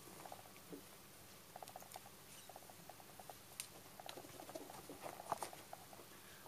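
A cat moving about on a fabric-covered chair back: faint, quick runs of soft ticks and scratches, with one sharper click about five seconds in.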